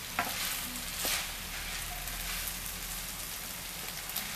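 Rice and chopped octopus sizzling in a wide frying pan while a wooden spoon stirs through it, with a couple of sharp scrapes or knocks of the spoon near the start.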